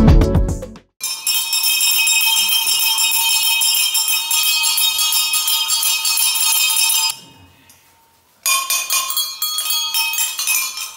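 Background music cuts off within the first second. Then temple bells ring continuously in a dense, shimmering metallic jingle, which drops away briefly about seven seconds in and then starts again.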